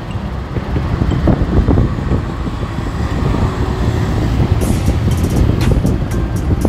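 Steady low rumble of the Nissan 370Z's 3.7-litre V6 idling. About four and a half seconds in, sharp, evenly spaced ticks join it.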